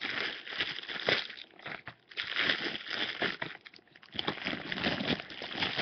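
Crinkling and rustling of a bag and packaged items being handled close to the microphone, uneven and scratchy, with many small clicks.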